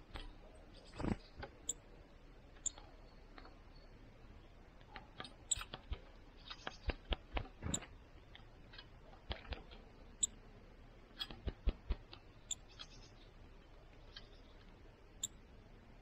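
Small bird pecking at fat balls in a wire-cage feeder: irregular sharp clicks and taps, bunched in quick runs about a second in, between about five and eight seconds in, and again around eleven to twelve seconds in.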